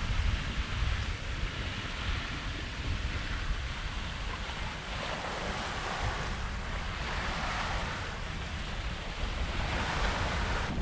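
Water rushing along the hull of a sailing yacht under way under sail, with wind buffeting the microphone as a low rumble. The wash swells twice.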